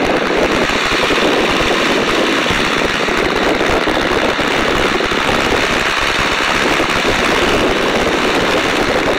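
De Havilland Gipsy Major four-cylinder inverted inline engine of a Tiger Moth biplane running steadily at climb power just after take-off, its propeller and the slipstream rushing past the open cockpit.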